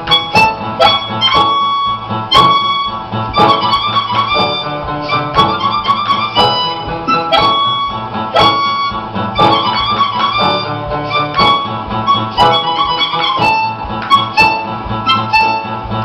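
Harmonica playing a melody over a backing accompaniment with a steady beat.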